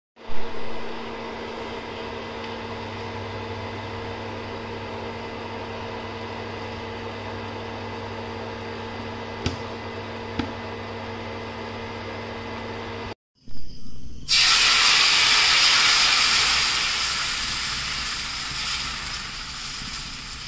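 Liquid boiling in a steel saucepan on an induction cooktop, a steady bubbling with the cooktop's constant electric hum and two faint clicks. After a cut, rice batter hits a hot pan and hisses loudly, the sizzle slowly dying down as the pancake sets.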